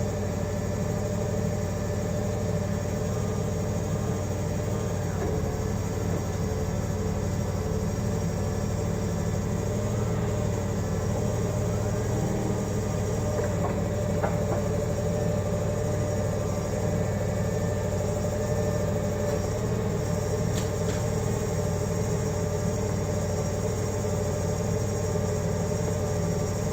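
Forklift engine running steadily at idle, with a few faint clicks about halfway through.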